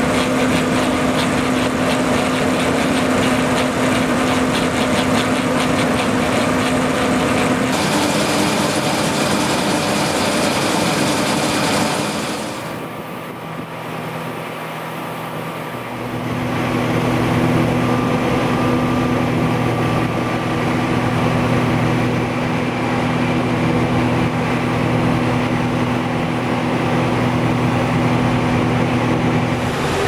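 Combine harvester fitted with a Shelbourne Reynolds RSD stripper header, running: a steady engine and machinery drone. It changes in pitch and mix about a quarter of the way through, and again after a brief drop in level near the middle.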